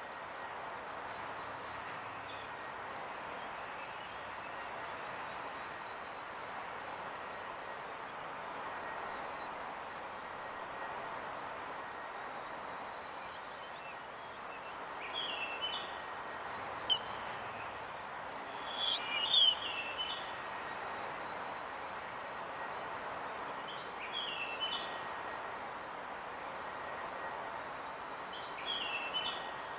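Cricket chorus: a steady high pulsing trill over a constant hiss of background noise. In the second half, several short groups of quick falling bird chirps break in, the loudest a little before two-thirds of the way through.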